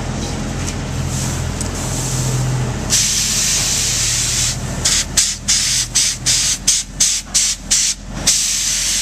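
Spray gun hissing as a liquid weather barrier is sprayed onto wall sheathing: a steady hiss from about three seconds in, which then breaks into short blasts, two or three a second, as the trigger is pulled and released. A low machine hum runs underneath.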